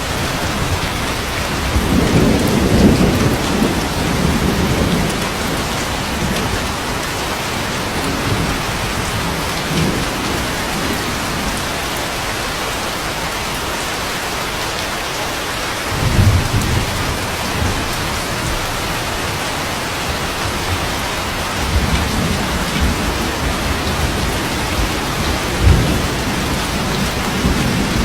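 Steady rain in a thunderstorm, with low rolls of thunder: a long one about two seconds in, more around the middle, and a short sharp clap near the end.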